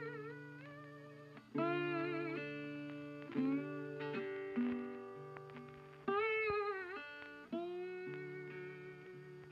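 Music: a slow guitar melody of plucked notes that are bent and held with vibrato, each struck sharply and left to fade, over a held low note.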